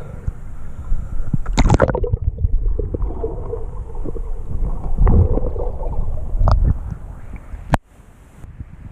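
Muffled churning, gurgling and sloshing of river water around a waterproof camera as it is moved under and through the surface, with a splash about a second and a half in. A sharp tap near the end, after which the sound turns quieter.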